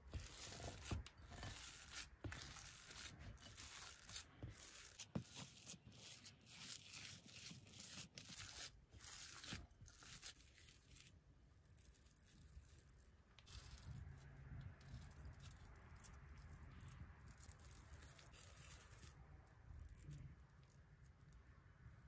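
Faint rustling and squishing of hands pressing and rubbing a crumbly chocolate-and-crushed-cookie mixture in a glass bowl, with many small clicks. It quietens about halfway through.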